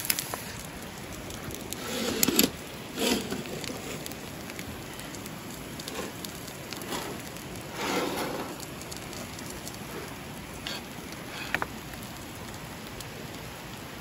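Steady rush of a river flowing, with a few short clatters and knocks of camp cookware being handled, one longer scrape about eight seconds in.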